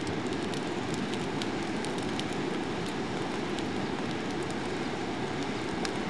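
Forced-air coal fire in a home-built bucket furnace burning with a steady rushing noise, with frequent small crackles and pops.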